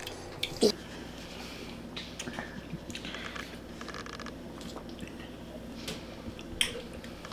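Mouth sounds of someone drinking a thick protein shake from a bottle: swallows and wet squishing, with scattered small clicks and a louder knock near the end.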